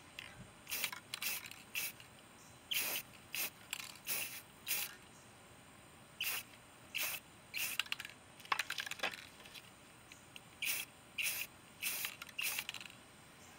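Aerosol can of Rust-Oleum aluminum spray paint being sprayed in a quick series of short bursts, each a brief hiss, onto a metal plant stand.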